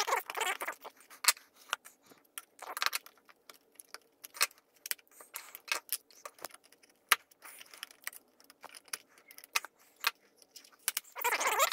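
Plastic bezel trim of a Lenovo L2364A LCD monitor being pried off by hand, its snap-fit clips popping loose in an irregular run of sharp clicks and cracks, with a few short scraping rustles of plastic on plastic.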